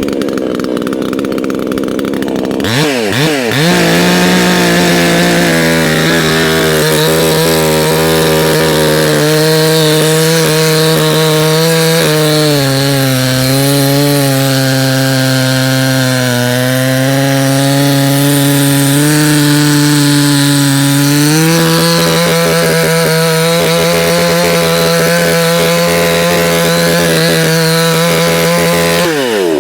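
Proyama 68cc two-stroke gas chainsaw revving up about three seconds in and held at full throttle. From about twelve to twenty-one seconds its pitch sags as the chain cuts into wood under load, then climbs back. Near the end the throttle is let off and the engine winds down.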